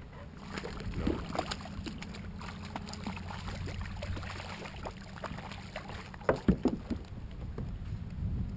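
Water splashing and sloshing beside a plastic kayak as a small fish is let go by hand, with scattered handling clicks and a cluster of sharp knocks about six seconds in.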